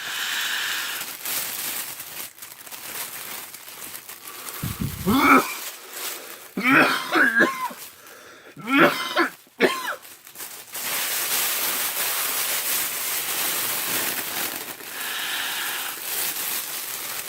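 A man drawing vapor from a vaporizer balloon bag: breathy hissing, broken by three rough, wheezy coughs about five, seven and nine seconds in, then a long steady hiss of breath.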